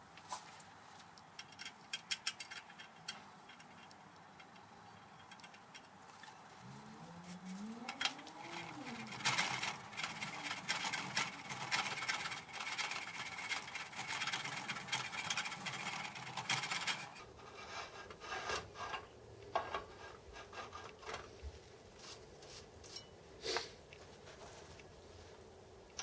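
Hand scraper and file strokes on metal, cleaning out the centre slot of a cast fly cutter body held in a vise: irregular rasping strokes with small clicks, busiest in the middle.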